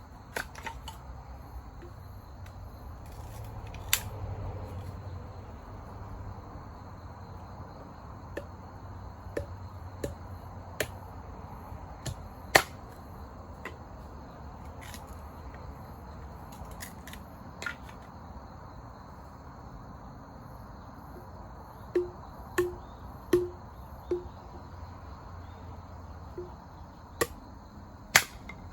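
Campfire wood popping and crackling: irregular sharp cracks, a quick run of several around the middle of the second half.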